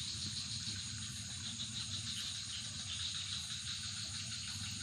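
A steady chorus of night insects, crickets chirping without pause, with a low steady rumble beneath.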